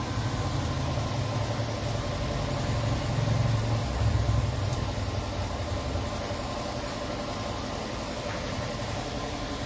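A vehicle engine idling with a steady low rumble that eases off about six seconds in.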